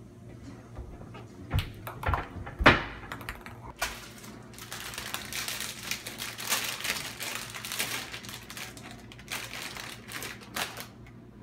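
A few sharp knocks, the loudest about two and a half seconds in, then a plastic wrapper crinkling and rustling for about six seconds as it is handled and torn open.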